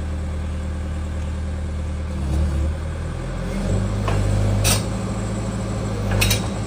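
Excavator's diesel engine running steadily, its note rising and shifting under load partway through, with two sharp metallic clanks about a second and a half apart near the end.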